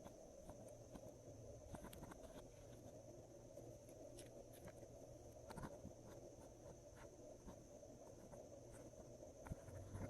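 Faint, irregular small clicks and sticky pops of glossy slime being mixed, over a steady low hiss.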